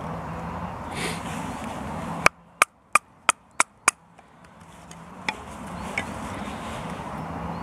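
A knife being batoned through a small stick of wood: a wooden baton strikes the spine of the knife six times in quick succession, about three blows a second, followed by two fainter knocks.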